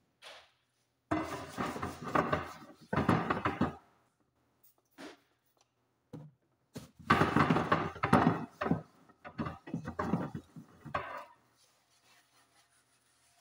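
Bursts of rubbing, wiping and knocking from cleaning a microwave's glass turntable plate by hand with a cloth: two longer spells of noise, one near the start and a longer one in the middle, separated by a quiet gap.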